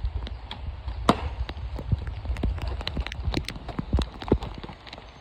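A run of irregular sharp knocks and taps, a few a second, over a low steady rumble.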